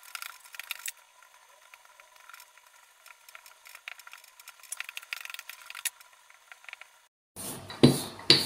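Small wooden hand roller rolling shortcrust dough out inside a metal tart pan, with light rattling, ticking and scraping. Near the end, after a short gap, come a few louder knocks and clatter.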